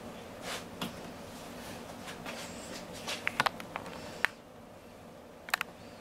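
A few light, sharp clicks and taps from things being handled and set down in a kitchen, with a quick cluster about three seconds in and a close double click near the end.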